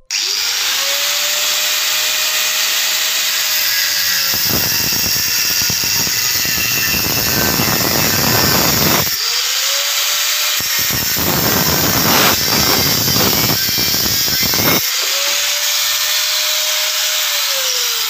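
Electric angle grinder with a thin cutting disc spinning up and cutting through a metal pipe in two passes, its motor whining freely between them and winding down near the end.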